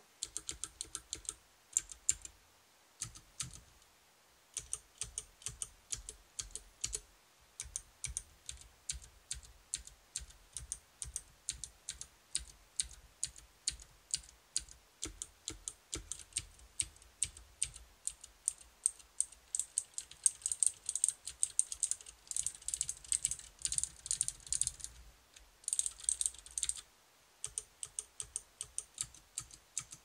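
Typing on a 60% mechanical keyboard with clicky Cherry MX Green switches: a fast, uneven stream of sharp key clicks and bottom-out clacks, broken by a few short pauses.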